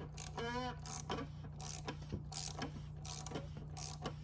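Irregular light metallic clicks and rattles of hand tools being handled around the oil filter housing, with a brief squeak about half a second in, over a steady low hum.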